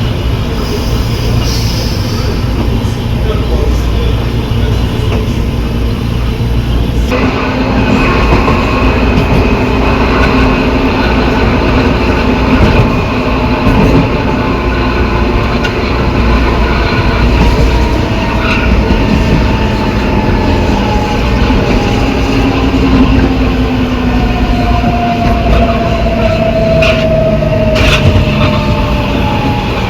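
Metro car's traction motor and inverter whining during braking, the whine falling slowly in pitch as the train slows. Under it run the steady rumble of the wheels and the growl of the car's reduction gearbox, a sound unusual to this train.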